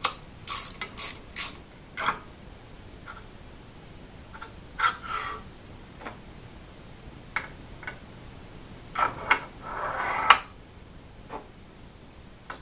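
Aluminium CNC router parts being handled: a few sharp metal clicks in the first two seconds, a short scrape about five seconds in, and a longer sliding rub around nine to ten seconds as linear bearing blocks are pushed along the rails, ending in a sharp click.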